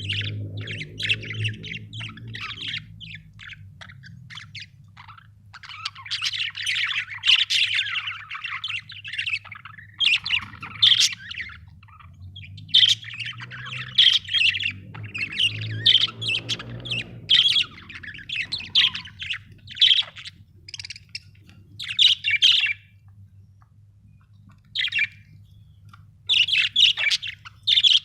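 Budgerigars chirping in rapid, busy clusters with short pauses between bouts, one longer pause a little past the middle.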